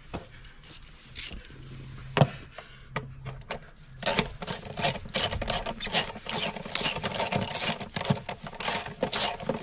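Socket ratchet driving a 10 mm screw into the plastic air filter housing, with a sharp knock about two seconds in. From about four seconds in the ratchet clicks in a steady run.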